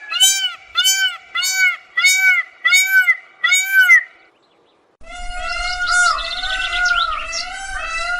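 Indian peafowl calling: a series of about seven short, loud arched notes, each rising then falling in pitch, about two a second, that stops about four seconds in. After a short silence a continuous warbling bird call with rapid trills takes over.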